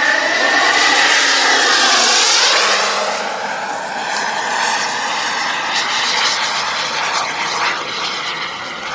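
Turbine-powered radio-controlled model jet flying past: a loud jet whine that drops in pitch as it passes about two seconds in, then a steadier, quieter rush as it flies on.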